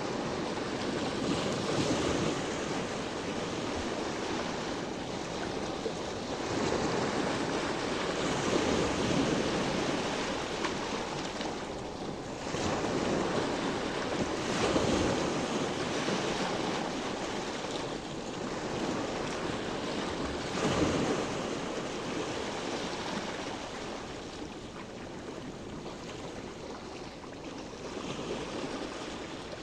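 Sea waves breaking and washing in, the sound swelling and ebbing every several seconds, a little softer near the end.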